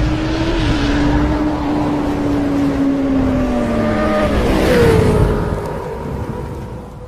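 Motorcycle engine sound effect: a hard-running engine holding one note that sinks slowly, shifts to a new note with a short downward glide about four and a half seconds in, then fades out.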